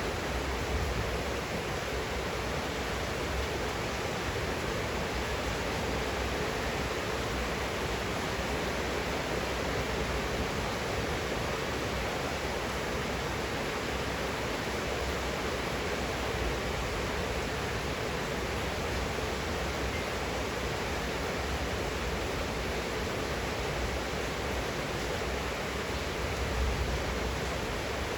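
Steady heavy rain falling, an even hiss with no pauses or separate impacts.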